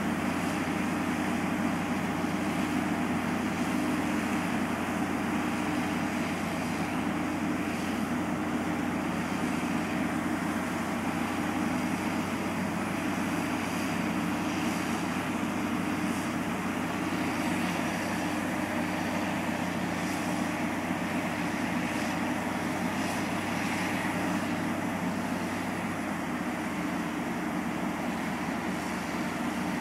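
Heavy diesel engines of a tow truck and a 1350-ton mobile crane running steadily under load as the truck tows the crane. The drone is loud and steady.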